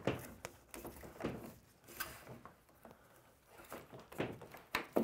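White sheathed electrical cable being pulled and handled among wooden ceiling framing: rustling with scattered light knocks as the cable and hands bump the wood.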